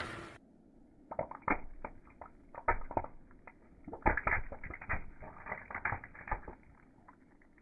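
Irregular sharp crackling and snapping clicks, denser in the middle, loudest about three and four seconds in: something brittle being crushed under a car tyre.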